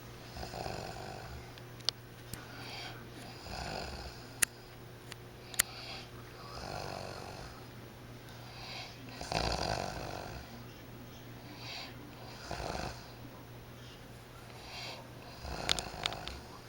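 A man snoring in his sleep, one snore on each breath about every three seconds, the loudest near the middle. A few sharp clicks come in between, the loudest of them early on and near the end.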